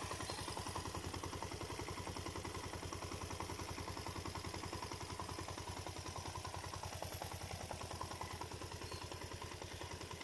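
Suzuki Djebel's single-cylinder four-stroke engine idling steadily, with a rapid, even knocking clatter. The customer reports the knock as a bad connecting rod after the engine overheated.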